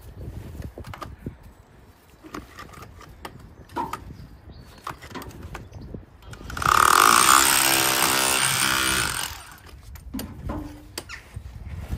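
Cordless core drill boring into a stone wall: the motor runs loud and steady for about three seconds around the middle, then stops. Small knocks and scrapes of the tool against the stone come before and after.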